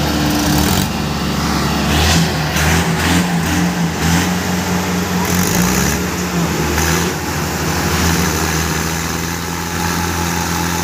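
Diesel tractor engines droning steadily under heavy load as two tractors push bumper to bumper, one of them a Mahindra Arjun stuck in mud; the two are evenly matched and neither gives way.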